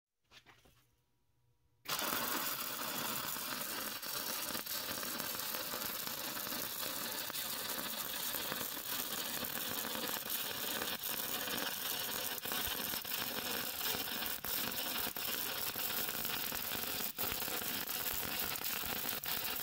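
Electric welding arc crackling steadily as pipes are welded onto a steel wood stove, starting abruptly about two seconds in.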